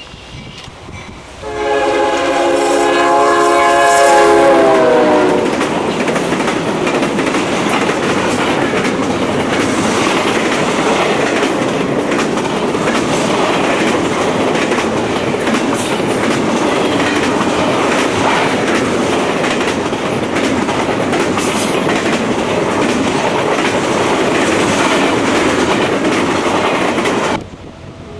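CSX double-stack intermodal freight train passing at speed. The lead locomotive's multi-tone air horn sounds for about four seconds, its chord dropping in pitch as the locomotive goes by. Then the container cars make a steady loud rushing and rattling, which stops abruptly near the end.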